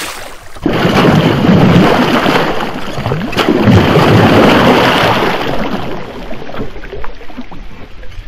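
Hooked giant snakehead thrashing and splashing hard at the water's surface, beginning suddenly about half a second in and dying down after about five seconds.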